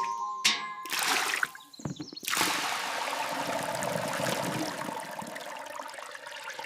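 A few short swishes, then from about two seconds in a steady rush of running water.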